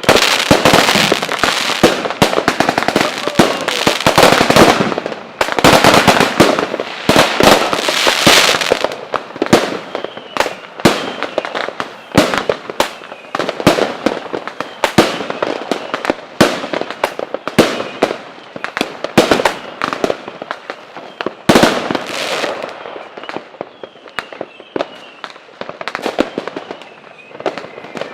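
Fireworks and firecrackers going off: a dense, rapid barrage of crackling bangs for about the first nine seconds, then thinner, scattered bangs.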